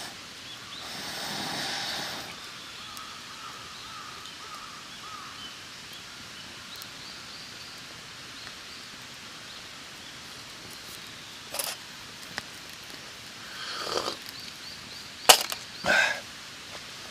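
Open-air campsite ambience with faint bird calls, then a few sharp knocks or clinks in the second half, the two loudest close together near the end.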